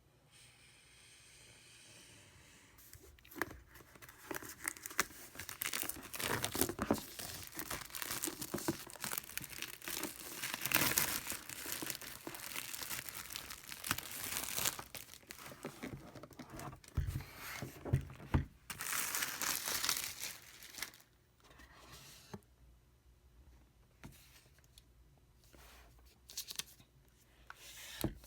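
Packaging being torn open and crinkled by hand while a laptop is unboxed, in irregular bursts of rustling and tearing, then quieter handling with a few clicks near the end.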